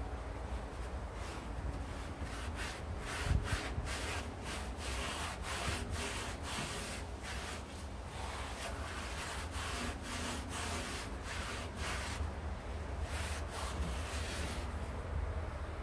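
Hand rubbing strokes worked back and forth over the offset smoker's steel, about two strokes a second, easing off near the end.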